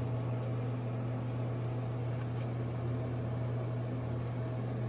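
Steady low mechanical hum with a light hiss, unchanging throughout.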